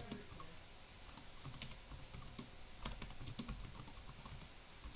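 Faint typing on a computer keyboard: irregular, scattered key clicks as commands are entered.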